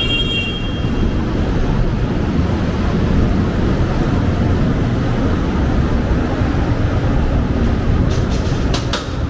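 City street ambience: a steady low rumble of traffic. A brief high-pitched tone sounds at the start, and a few sharp clicks come near the end.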